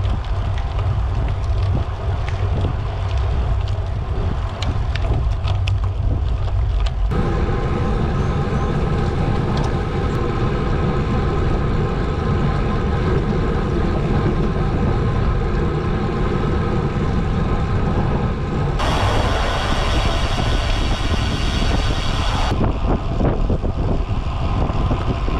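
Wind buffeting the microphone of a camera riding on a moving bicycle: a loud, steady low rumble with tyre and road noise and a few clicks. The sound changes character abruptly at about 7 seconds and again near 19 and 22 seconds.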